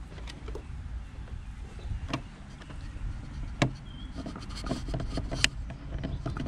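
Hands handling plastic parts and wiring inside an RC boat hull: light rubbing with three sharp plastic clicks and a patter of smaller ticks near the end, around the watertight receiver box. A low steady rumble runs underneath.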